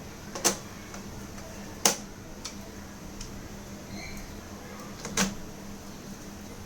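Hard plastic and metal parts of a laptop being handled, with three sharp clicks about half a second, two seconds and five seconds in and fainter ticks between them. A steady low hum runs underneath.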